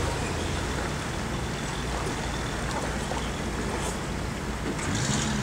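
A vehicle engine idling: a steady low rumble. About five seconds in, a steadier low hum sets in on top of it.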